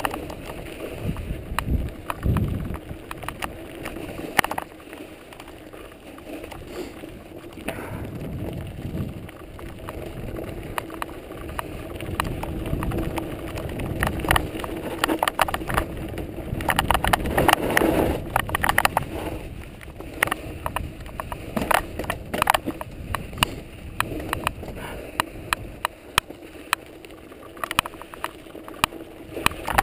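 Mountain bike riding over snow, dirt and gravel: tyres rolling with a steady rushing noise and frequent clicks and rattles from the bike over bumps, busiest for a few seconds in the middle.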